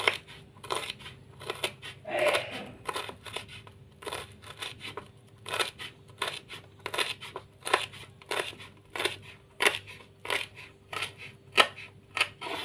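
Kitchen knife chopping red curly chilies on a wooden cutting board: a steady series of short, sharp knocks, about two to three a second.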